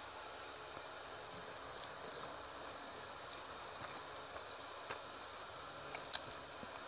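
Fingers mixing rice and fish curry on a plate, giving soft scattered clicks and squishes over a steady hiss, with a sharper click about six seconds in as a handful goes to the mouth.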